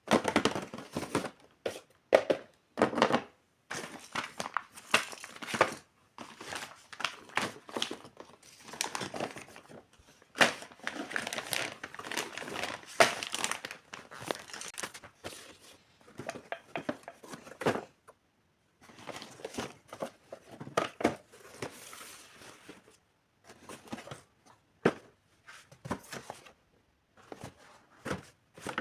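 Packaging of a miniature toy kitchen set being unboxed: irregular crinkling and tearing, with sharp little clicks and taps between short pauses, thinning out near the end.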